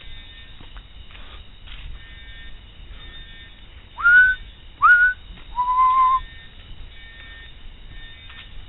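A person whistling three notes: two short notes that slide upward, then one longer, steady, slightly lower note.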